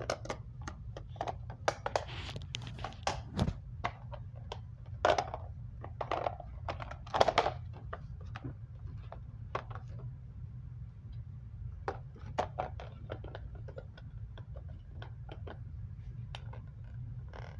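Handling noise: scattered light clicks and taps with a few brief rustles, more of them in the first half, over a steady low hum.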